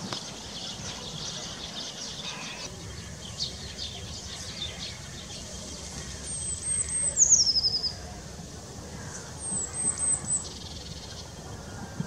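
A small songbird singing high, thin trills. The first, about six seconds in, slides down in pitch to a rapid trill; a shorter one follows near ten seconds. A steady low rumble runs underneath.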